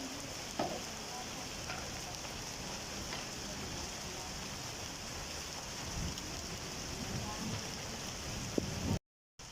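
Heavy monsoon rain falling steadily as a continuous hiss, with a few sharp taps of drops striking nearby surfaces. The sound cuts off abruptly about nine seconds in.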